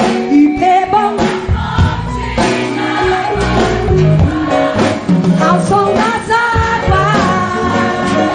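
Portuguese gospel worship song: a group singing along over a live band with drums.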